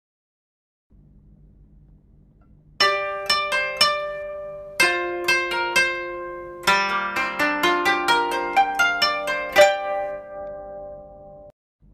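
Instrumental music played on a plucked string instrument. Ringing single notes begin about three seconds in and quicken into a fast run of notes in the middle, then stop just before the end.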